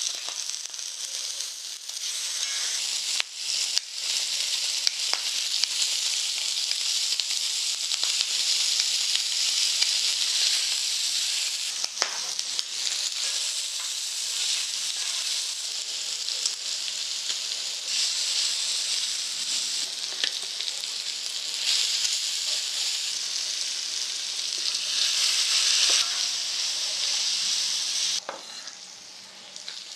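Pork belly slices sizzling as they fry on a hot griddle pan, with occasional clicks and scrapes of tongs and wooden chopsticks against the pan as the meat is laid down and stirred with green onions. The sizzle drops off sharply about two seconds before the end.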